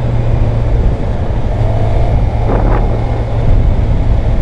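2012 Suzuki GSX-R750's inline-four engine running steadily at cruising speed through its stock exhaust, with wind noise on the microphone.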